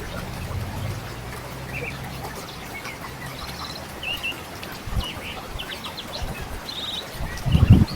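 Forest river water flowing steadily while small birds chirp in short, scattered calls. A low thump comes about five seconds in, and louder low thumps near the end.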